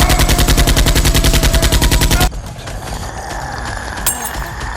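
Machine-gun fire sound effect: a fast, even burst of shots lasting a little over two seconds that cuts off suddenly. A quieter steady background follows.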